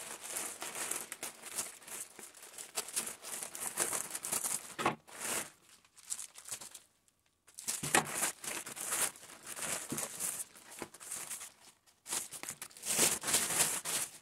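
Grey plastic poly mailer bag crinkling and rustling as it is handled and emptied of its packets, in bouts with a couple of short pauses.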